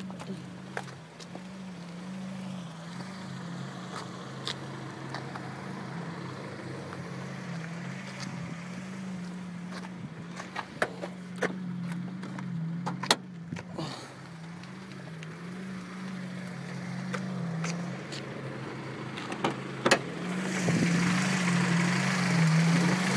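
1990 Honda Prelude's four-cylinder engine idling with a rhythmic rise and fall, a little pumping noise that seems to come from the intake area. A few sharp clicks and knocks sound over it, and near the end the running gets louder with a hiss added.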